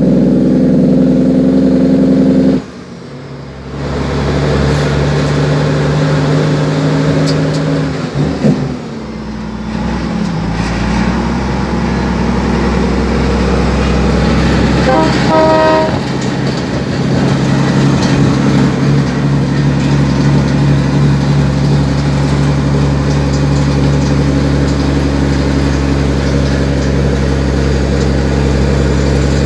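Cummins N14 diesel engine of a heavy truck running steadily, heard from the cab. Its note drops and shifts a few times in the first ten seconds, and a short run of rapid pulses comes about halfway.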